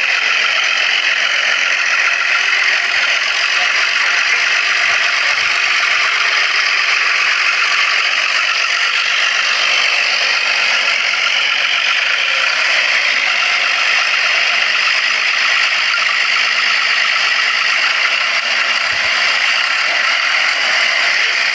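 New Holland 480 tractor's diesel engine running steadily with a clattering rattle.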